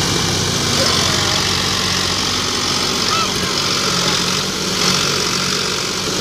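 Diesel tractor engines running steadily at idle, with no revving.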